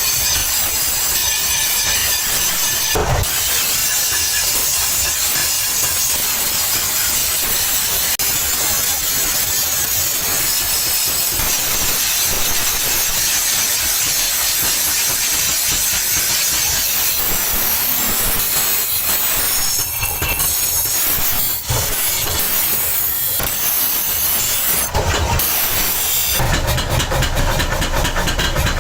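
Steady, loud, harsh hissing workshop noise, with a brief break about three seconds in and a fast, even ticking joining it near the end.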